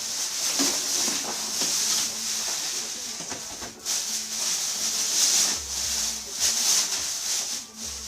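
Packaging rustling and crinkling in the hands as a new coffee machine is unwrapped, with brief pauses.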